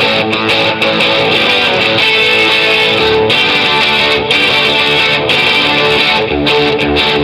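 Recorded rock music: guitars strumming chords in a steady passage, before the band's heavy section comes in.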